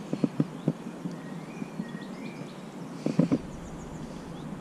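Two quick clusters of low knocks from fishing forceps and their retractor being handled, about four taps a quarter-second in and a second flurry near three seconds, over a steady rush of river water with faint birdsong.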